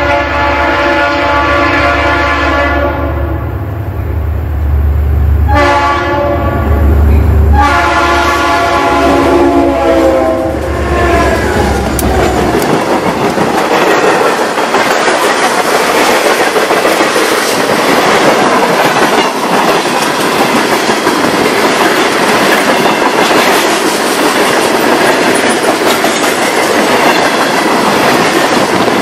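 Leslie RS3L air horn on an EMD SD40-2 diesel locomotive sounding at a grade crossing: a long blast, a short one about six seconds in, then a final long blast fading out around eleven seconds, over the low rumble of the locomotives' engines. The engine rumble drops away around twelve seconds, and freight cars roll past with steady wheel clatter.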